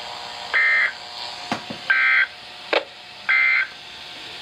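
Emergency Alert System SAME digital data bursts: three short, harsh electronic buzzes of two alternating tones, about 1.4 seconds apart, with faint clicks between them. This is the end-of-message code that closes the alert.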